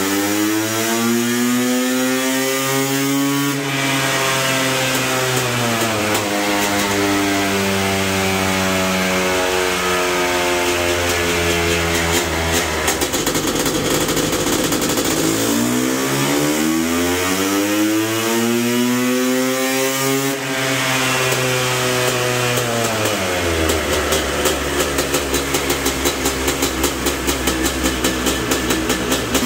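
Honda CR500 single-cylinder two-stroke engine, bored to 497 cc and running through an FMF Gnarly expansion pipe, on a chassis dyno. It climbs in pitch at full throttle for the first three seconds or so, then the revs fall away as it winds down. It revs up and falls once more midway, and near the end it runs with an uneven pulsing beat.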